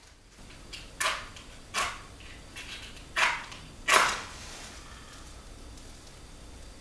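Safety match struck against the side of a matchbox: a few short, sharp scrapes, the last and loudest about four seconds in, followed by a brief hiss as the match flares alight.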